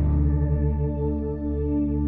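Ambient background music: long held synthesizer tones over a low steady drone.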